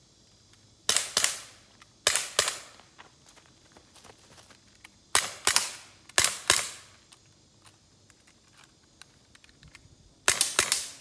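Sig P226 CO2 blowback pellet pistol firing, the shots coming in about five quick groups of two or three, each crack with a short ringing tail.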